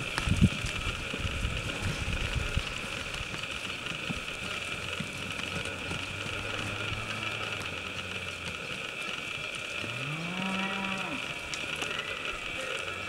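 Cattle mooing: low, drawn-out moos, then one moo about ten seconds in that rises and falls in pitch. A few low thumps come in the first seconds.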